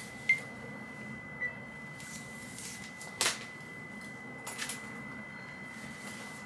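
Quiet room tone with a thin, steady high-pitched whine and a few short clicks and knocks, the loudest about three seconds in.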